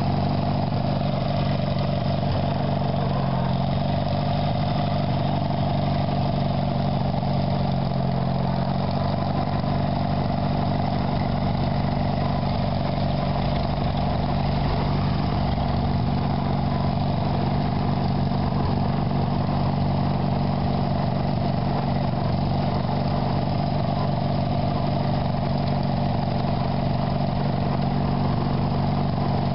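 An engine idling steadily, an even low drone with a slight waver in pitch during the first several seconds.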